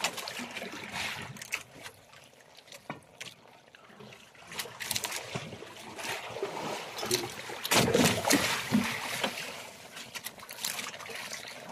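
Squid sizzling in a hot aluminium pot as a liquid is poured in, an uneven hiss with scattered pops. It grows louder around five seconds in and again around eight seconds in.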